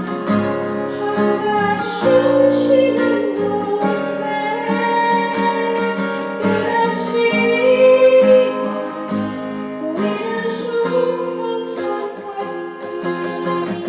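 Guitar playing a melody over chords, each plucked note ringing on.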